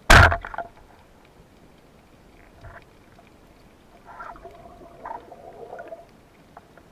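Band-powered speargun firing underwater: one sharp, loud crack as the rubber bands and wishbone snap forward, dying away within about half a second. Fainter knocks and scraping follow a few seconds later.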